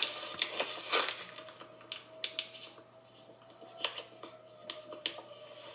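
Tornado warning siren holding a faint, steady tone, with scattered sharp clicks and taps over it.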